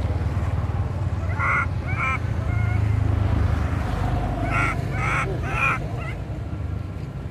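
Short, high-pitched cries of a baby long-tailed macaque: a couple around two seconds in, then a quick run of about four near five seconds. A steady low rumble runs under them.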